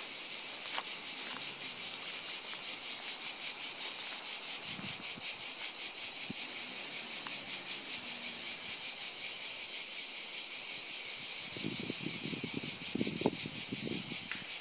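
Cicadas singing in a steady, high, shrill chorus with a fast pulsing texture. A few low scuffing noises come in over the last few seconds.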